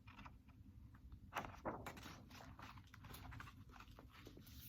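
Near silence: room tone with a few faint clicks and a soft rustle about a second and a half in.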